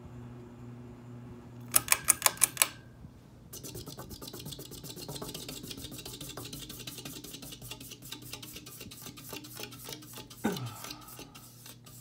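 Ceiling fan motor buzzing, then about six sharp clicks as the buzz stops, followed by a fast, even run of ticks that slowly spaces out. A short sound gliding down in pitch comes near the end.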